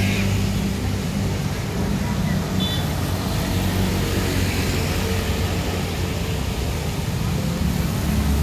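City street traffic on a wet road: a steady low hum of motorcycle and car engines with road noise. There is a brief high chirp about two and a half seconds in.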